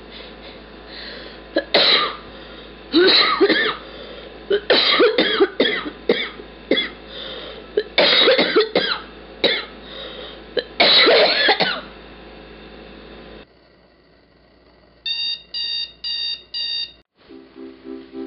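A person with cystic fibrosis coughing in repeated fits, many irregular bursts for about twelve seconds. Then a digital alarm clock beeps in four short groups and cuts off, and piano music starts near the end.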